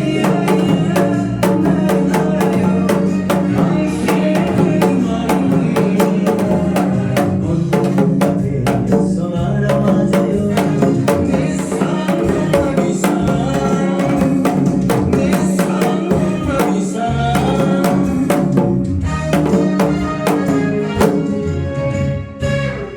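Janggu (Korean hourglass drum) struck in a fast, steady pattern in the gogo janggu style, played along to a recorded backing song. Near the end the music fades out.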